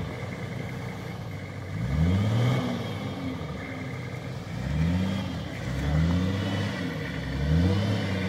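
Nissan Patrol's engine revving in four surges, each rising and falling in pitch, as the 4x4 is driven under load up a steep rutted, rocky track.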